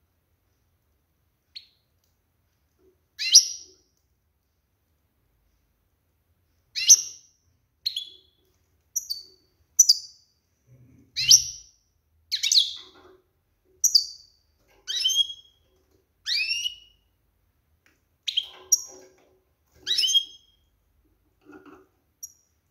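Female European goldfinch calling: a series of short, separate chirps, each a quick downward sweep, coming about one a second from about three seconds in. These are the calls of a female ready to breed, used to stir males into song.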